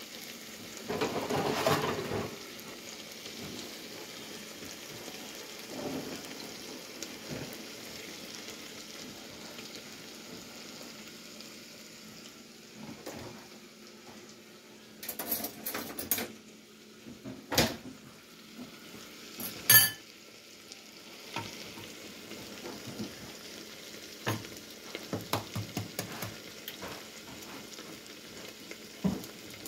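Diced potatoes frying in oil under a glass lid, a steady sizzle. A handful of sharp clicks and knocks stand out in the middle stretch, the loudest about two-thirds of the way through.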